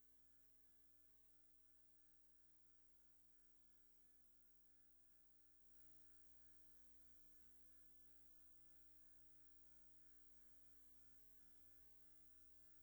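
Near silence: a faint, steady electrical hum, slightly louder from about halfway through.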